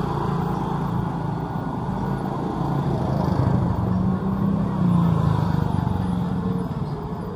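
A motor vehicle's engine running close by over street noise, growing louder about three to five seconds in and then fading as it passes.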